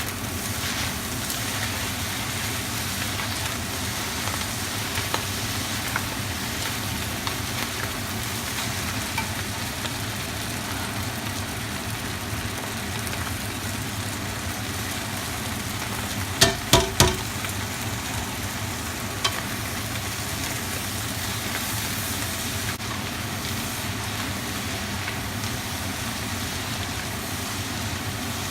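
Rice noodles stir-frying in a hot pan, sizzling steadily as they are tossed. A little over halfway through, three quick knocks come in rapid succession.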